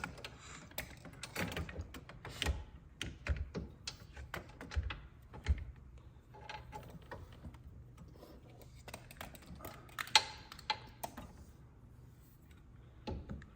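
Irregular small clicks and knocks of metal and plastic parts being handled as a replacement power recliner motor is positioned in the reclining mechanism. They are busiest in the first half, with a sharper knock about ten seconds in.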